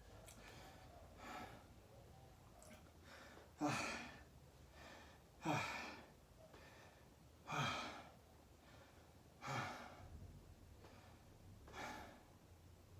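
A person breathing hard between sets of burpees, with five heavy exhales about two seconds apart: winded from the exertion and recovering.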